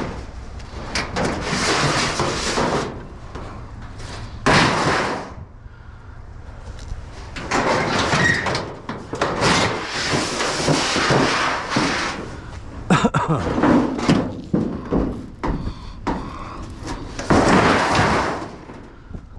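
Scrap metal being dragged and handled: long scraping slides broken by sharp clanks and knocks.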